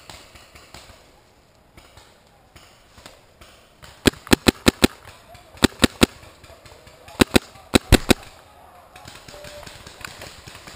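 Paintball markers firing: about a dozen sharp pops in quick bursts of five, two, two and three over about four seconds.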